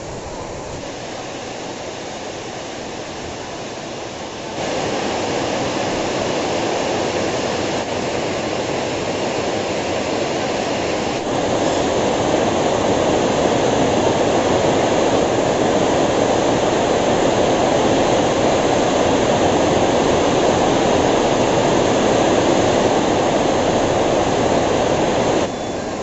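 Heavy rain pouring down steadily, getting louder in two sudden steps, about five and eleven seconds in.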